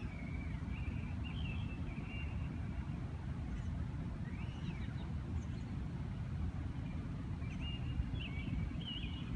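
Outdoor ambience of a steady low rumble. Over it a songbird sings short warbled phrases near the start and again near the end, with a single rising-then-falling call in the middle.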